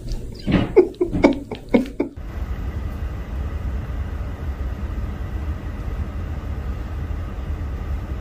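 Steady low rumble of a car's interior from about two seconds in. Before that, a person's voice in a few short bursts.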